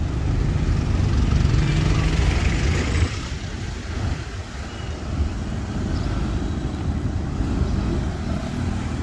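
Street traffic with a heavy low rumble: a motor vehicle passes close, loudest in the first three seconds and falling away suddenly at about three seconds, then a steadier traffic noise continues.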